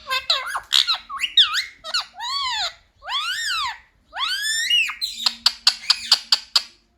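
Indian ringneck parakeet calling: a string of drawn-out screechy calls, each rising then falling in pitch, then a quick run of short sharp chirps about five to six and a half seconds in.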